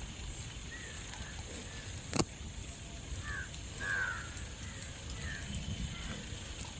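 A few short bird calls spread over several seconds, over a low steady background, with a single sharp click about two seconds in.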